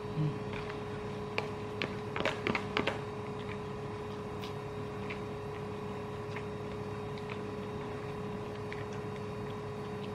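Eating sounds: a metal spoon clicking and scraping in a plastic takeaway container, with chewing, most of it in a cluster of short clicks in the first three seconds. A steady hum runs underneath.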